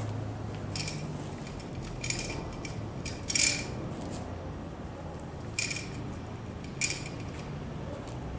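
About five short metallic clinks, the loudest in the middle, as the metal buckles and clips on a horse blanket's belly straps are fastened. A steady low hum runs underneath.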